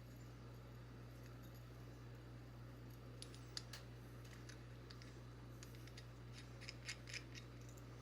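Near silence: a steady low hum, with a few faint, short clicks and taps in the second half.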